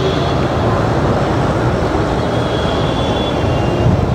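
Steady rumble of road and engine noise from a moving vehicle, with faint high whining tones now and then.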